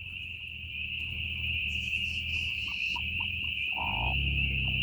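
Steady, high-pitched chorus of insects, with a low rumble coming in near the end.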